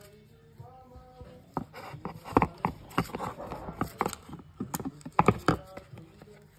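Plastic MacBook power adapter set into its cardboard tray and the box packaging handled: a run of irregular clicks and knocks.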